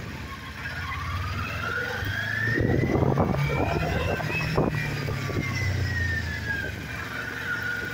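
Motorcycle engine running under way, with wind noise on the microphone. A higher tone rises over about three seconds, then slowly falls back.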